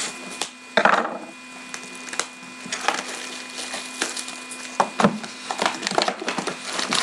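Plastic shrink-wrap being cut and pulled off a sealed box of trading cards, crinkling and crackling, with a louder burst about a second in.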